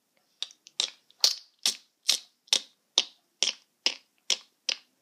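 Footsteps: a run of about eleven sharp, evenly spaced clicks, a little over two a second, starting about half a second in, as a Lego minifigure walks across the baseplate.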